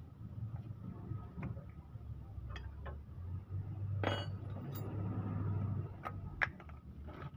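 Hand tools clinking and tapping on the car's steel suspension parts, a scattered string of light metallic clicks with a sharper knock about four seconds in and again near six and a half seconds, over a steady low hum.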